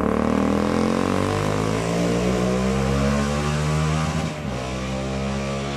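Motorcycle engine accelerating, its pitch rising steadily for about four seconds, then a short break and a lower, quieter steady note.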